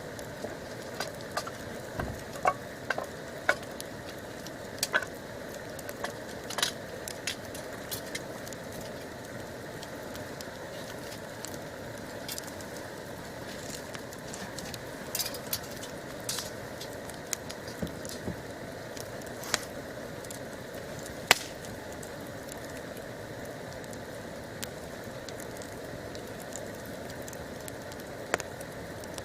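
Wood campfire crackling, with irregular sharp pops over a steady hiss; one pop, a little over two-thirds through, is much louder than the rest.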